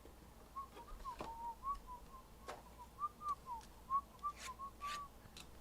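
A person whistling a short wandering tune of quick notes that glide up and down, with a few sharp clicks in between.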